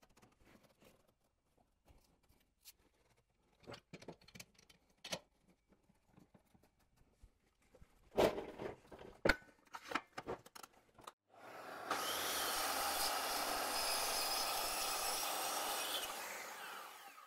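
Scattered knocks and clicks of plywood and a bar clamp being set in a wooden scarfing jig, loudest about 8 s in. Then, about 11.5 s in, a circular saw runs along the jig's guide rail cutting a scarf into the plywood edge. Its steady whir lasts about five seconds and fades out near the end.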